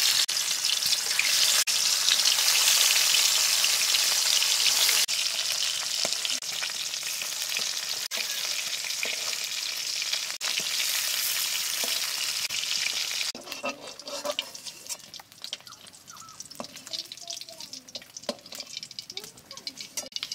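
Climbing perch sizzling as they fry in hot mustard oil in a steel karahi, with a spatula stirring and turning the fish. After about thirteen seconds the sizzle drops away, leaving scattered scrapes and knocks of the spatula as the fish are lifted out.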